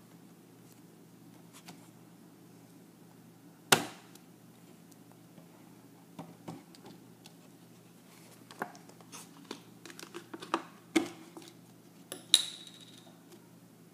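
Thin plastic water bottle being handled: a sharp knock about four seconds in, then scattered crackles and clicks of the bottle's plastic and its screw cap being twisted, ending in a sharp snap with a brief ring near the end.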